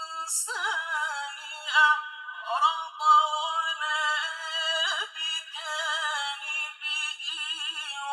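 A man's voice chanting Quran recitation high in his range, in long ornamented melismatic phrases with wavering, sliding pitch and short breaks between phrases.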